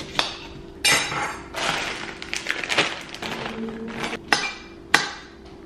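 Kitchen knife chopping vegetables on a hard cutting board. Several separate sharp clinking knocks, with softer handling and scraping noise between them.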